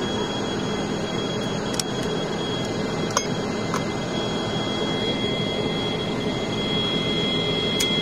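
Cabin noise of a turboprop airliner rolling down the runway after landing: the engine and propeller run steadily with a constant high whine over a rushing rumble, with a few faint clicks.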